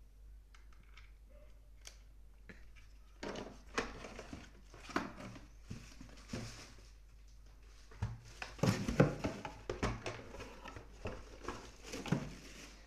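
Packaging and phone parts being handled: irregular rustling and crinkling with sharp clicks and knocks, starting about three seconds in and busiest about eight to nine seconds in.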